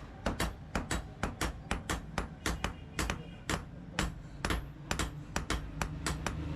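Blacksmith's hammer striking steel on an anvil during forging: steady, rapid blows about four a second, each ringing briefly, with a low hum underneath.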